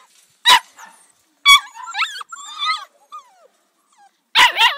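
Seven-week-old Australian labradoodle puppies yipping and whining in short, high-pitched calls. One yip comes about half a second in and another at about a second and a half, followed by a run of wavering whines and yips. A loud burst of yips comes near the end.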